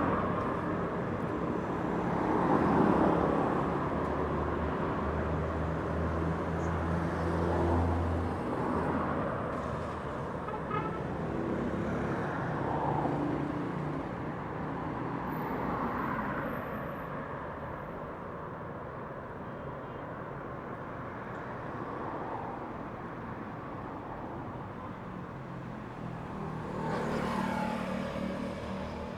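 City street traffic at night: cars passing one after another over a steady traffic hum, each one swelling up and fading away. A deeper engine drone runs for a few seconds about four seconds in.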